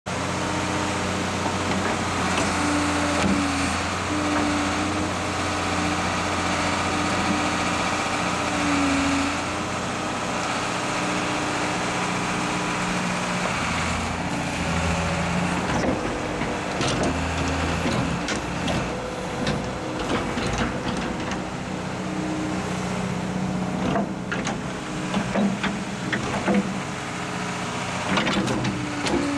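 A large engine running steadily, with scattered knocks and clatters in the second half.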